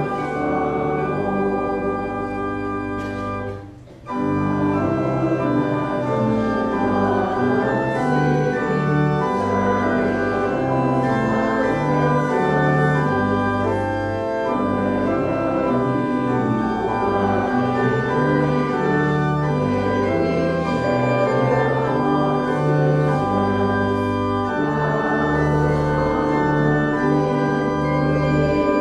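Church organ playing a hymn in held chords that change every second or so, with a short break about four seconds in.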